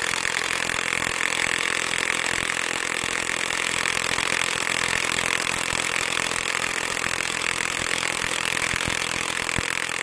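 Cordless half-inch drive impact wrench, a Makita-battery clone, hammering steadily in reverse on a 3/8 by 12 inch bolt sunk in a log. The bolt does not break loose.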